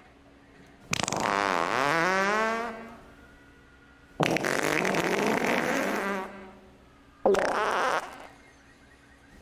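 Three farts with short pauses between them. The first is a long buzzing one whose pitch drops and then rises. The second, a couple of seconds later, is rougher and noisier. The third is short, near the end.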